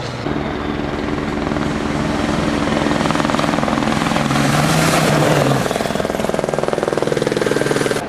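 Volkswagen Race Touareg rally car's five-cylinder turbodiesel engine under hard acceleration, growing louder as the car approaches, loudest as it passes about five seconds in, then a fast pulsing engine note as it pulls away.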